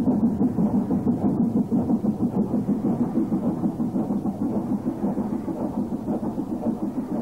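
Steam locomotive working, its exhaust beats coming in a rapid, even rhythm of several a second, dull-sounding.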